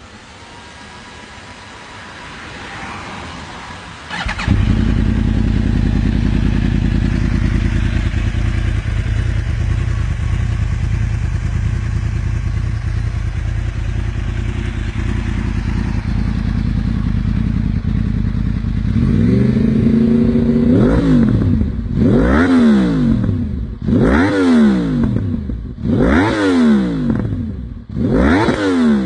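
Crossplane Yamaha R1 inline-four with a full Akrapovič exhaust system starting up about four seconds in and idling steadily. Near the end it is revved in a series of quick throttle blips, each rising and falling in pitch.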